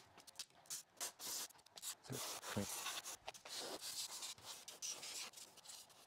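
Aerosol spray can hissing in short spurts, then a longer spray of about three seconds, cleaning dust out of the opened base of a microwave oven.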